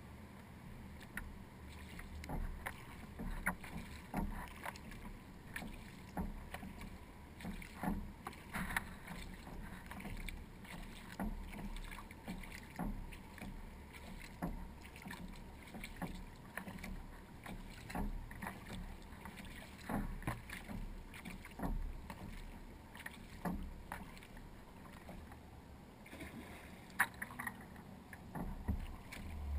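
Kayak paddle strokes dipping into calm water, with splashes and drips coming at a steady rhythm of about one stroke a second. There is one sharper click near the end.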